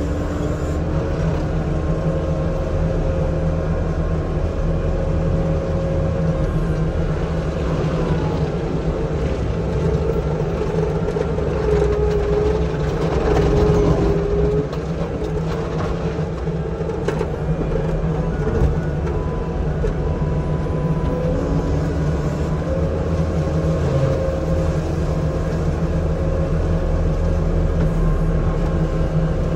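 Forestry mulcher running steadily, its engine and spinning cutter head heard from inside the cab as it grinds brush and saplings; the drum's tone drops and the sound swells for a couple of seconds about halfway through.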